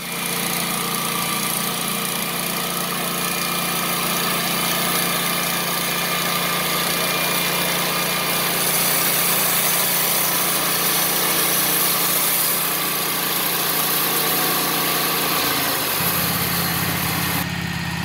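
Wood-Mizer LT15 portable band sawmill cutting a board off a squared log: its gasoline engine runs steadily under load while the band blade hisses through the wood. Near the end the blade clears the wood and the hiss drops away, leaving the engine running.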